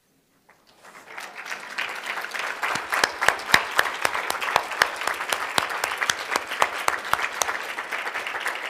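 Audience applause: after a near-silent first second, many hands start clapping and build quickly to steady, dense clapping that carries on.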